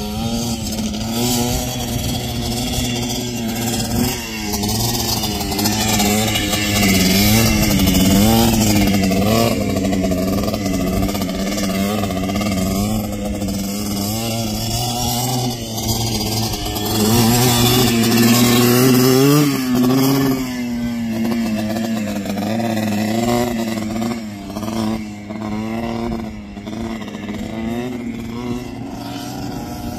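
Sport ATV engine revving up and dropping back again and again as the quad is ridden around a dirt track, its pitch rising and falling with the throttle. It is loudest around eight seconds in and again near twenty seconds.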